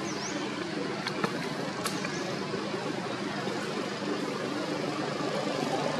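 Steady outdoor background din with a low hum like distant traffic. A few sharp clicks come about a second in, and short high chirps sound near the start and again about two seconds in.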